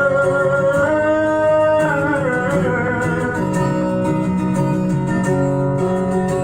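Music: an instrumental passage of a song, led by strummed and plucked acoustic guitar.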